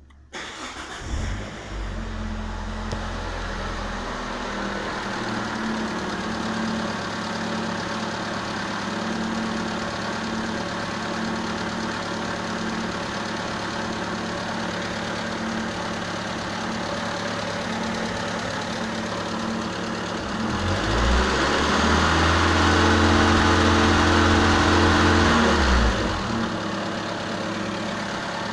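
Ford Probe's 2.0 L four-cylinder engine starting about a second in and settling into a steady idle. About three-quarters of the way through it is held at higher revs for around five seconds, then drops back to idle.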